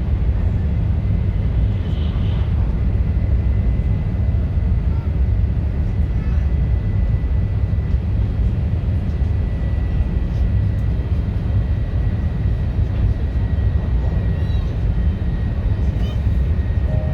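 Steady running rumble of an E2 series Shinkansen, heard inside the passenger car, heavy in the low end, with a faint steady high whine through the middle.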